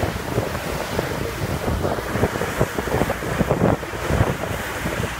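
Wind buffeting the microphone in irregular gusts, over the wash of choppy water heard from aboard a boat.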